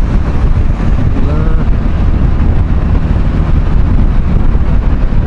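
Wind rushing over the microphone while riding a motorcycle, with the bike's engine and road noise underneath as a loud, steady rumble.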